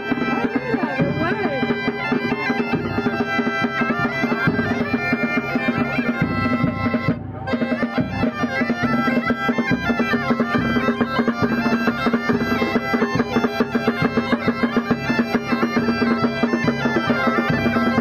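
Bagpipes playing a tune over a steady drone, dropping out briefly about seven seconds in.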